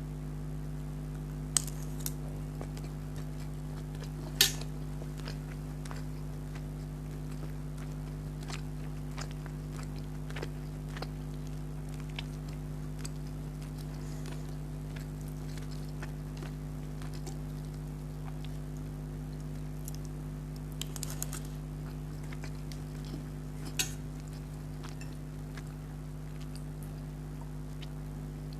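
Eating from a plate of curry and rice: sparse sharp clicks and clinks of utensil or fingers against the plate, the loudest about four seconds in and a small cluster near the end, over a steady low hum.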